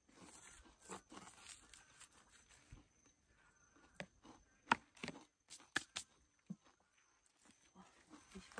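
Faint rustling and a handful of short, sharp clicks and taps from eating: a fork working through food in a paper-lined container, with the paper being handled. Most of the clicks come in a cluster in the middle.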